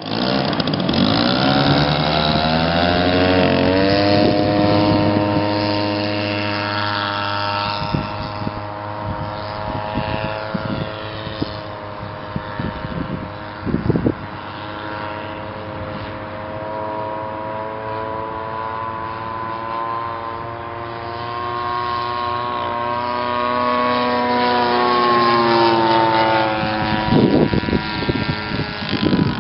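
Zenoah G62 two-stroke petrol engine driving the propeller of a 1/3-scale radio-controlled Fokker D.VII model biplane through a reduction unit. Its note rises as it opens up in the first few seconds, holds steady in flight, then sweeps up and falls away as the model passes overhead late on, with a few gusts of wind on the microphone.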